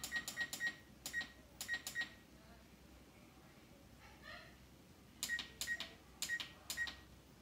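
Electronic oven control panel beeping as its keys are pressed to set the timer: a quick run of short beeps, each with a key click, in the first two seconds, then four more about five seconds in.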